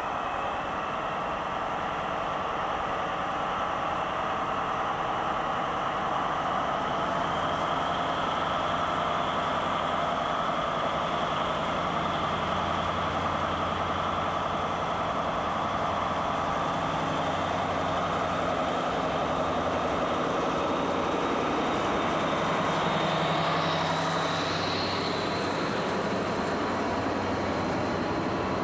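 DB class 218 diesel-hydraulic locomotive working hard as it hauls a heavy car-transport train on its own, its engine growing louder as it approaches and passing close by about three-quarters of the way through, with a high whine that peaks as it goes by. The car-carrier wagons then roll past behind it.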